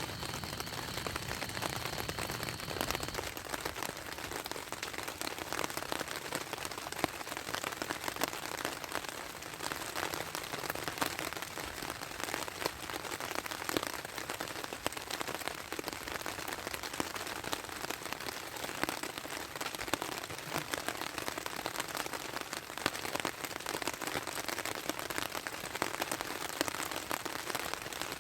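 Steady rain falling, with a dense patter of small drops hitting surfaces.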